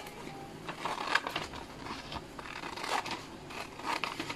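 A sheet of paper rustling and crinkling as gloved hands handle and bend it, with many small irregular ticks and scrapes.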